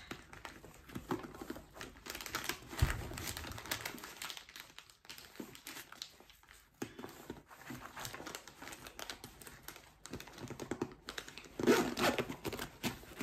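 Crinkling of a plastic-wrapped tissue packet and rustling of nylon backpack fabric as the packet is stuffed into a small pocket. Scattered small clicks run through it, with a louder burst of handling near the end.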